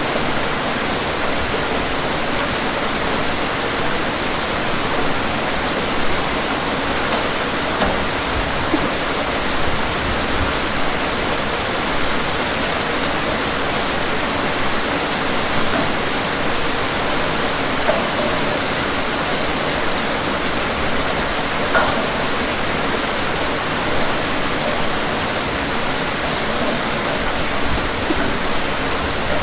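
Rain falling steadily as an even hiss, with a few brief louder drop ticks here and there.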